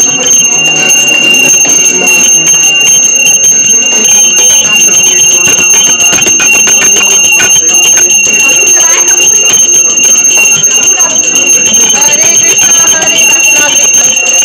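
Puja hand bell rung continuously through an aarti, giving a steady high ringing, over hand-clapping and devotional singing.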